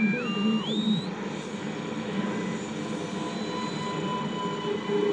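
Long-wave reception on an Integral radio receiver: hiss and crackle, with heterodyne whistles gliding up and down in pitch during the first second as the dial is tuned. Then a steady hiss with faint thin tones, one breaking on and off, which the listener takes for possible Morse code or a glitch.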